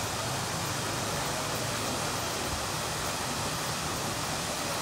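Rain-swollen waterfall pouring down a rock face: a steady, even rush of falling water that does not change.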